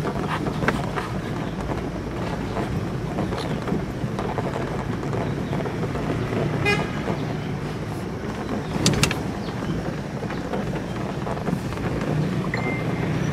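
Steady rumble and road noise inside a car driving over a rough, unpaved gravel road, with a few sharp knocks and rattles from the bumps. A short vehicle horn toot about halfway through.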